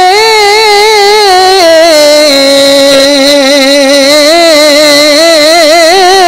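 A man's voice holds one long, melodic chanted note in recitation of a Quranic verse, with many small ornamental pitch turns. It steps down to a lower pitch about a second and a half in and rises again near the end.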